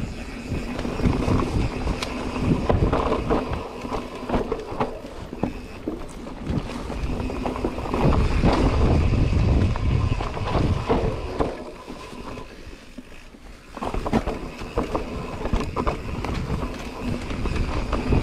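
Mountain bike riding fast down a dirt forest singletrack: tyres rolling over earth and roots, with the bike rattling and knocking over bumps and wind rushing on the microphone. It goes briefly quieter about twelve seconds in, then picks up again.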